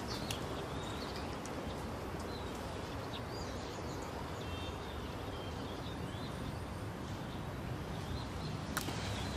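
Outdoor ambience: a steady background hiss with faint, scattered bird chirps, and one sharp click near the end.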